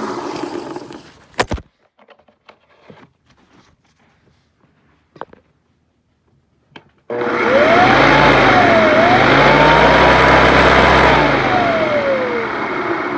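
Hoover Custom Convertible upright vacuum's motor coasting down to a stop near the start, then a few clicks and knocks. About seven seconds in it is switched on abruptly: its whine climbs, dips, climbs again and holds for a few seconds, then slides down as the motor winds down. The run comes after it sucked up something too big.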